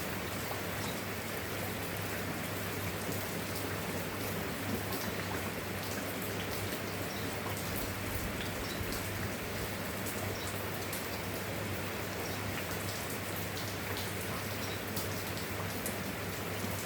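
Steady rain falling, with many individual drops ticking sharply on a surface close by, over a constant low hum.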